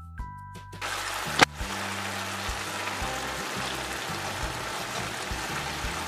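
Background music, then a little under a second in a steady sizzling and bubbling starts: grated carrots simmering in milk in a metal kadhai, the milk reducing for carrot halwa. A single sharp click comes at about a second and a half, and the music's low notes carry on faintly underneath.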